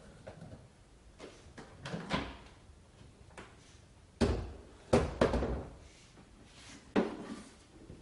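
Hard plastic clicks and knocks as the motor head of a Kärcher SE 5.100 washing vacuum cleaner is unlatched and lifted off its tank: light clicks in the first two seconds, the loudest knocks about four and five seconds in, and another about seven seconds in as the head is set down.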